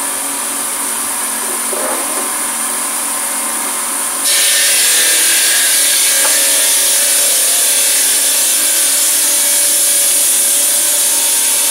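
Marble-cutting circular saw running as its blade grinds through a marble slab: a steady, harsh grinding hiss. About four seconds in it suddenly grows louder and brighter as the blade bites into the stone, and it holds there.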